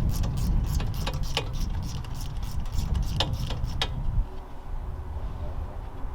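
Hand socket ratchet clicking as a suspension bolt is turned: a quick run of clicks, then a few scattered ones, ending a little under four seconds in. Under it a low rumble stops about four seconds in.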